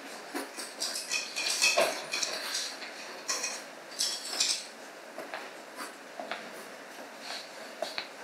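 Pencil scratching on paper in short, irregular strokes as a tree's outline is sketched, with a few louder strokes in the first half.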